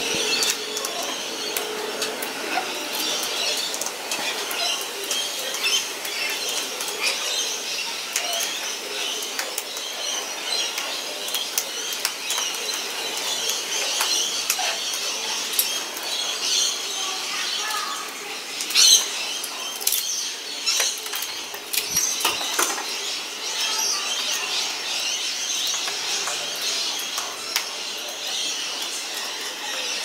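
Sulphur-crested cockatoos feeding at a hanging seed bell: beaks crunching and cracking sunflower seeds, with sharp clicks, scuffling and wing flaps, loudest a little past the middle. Other birds chirp steadily in the background.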